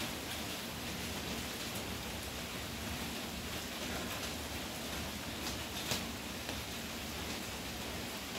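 Steady rain falling, an even hiss, with a couple of sharp ticks close together near six seconds in.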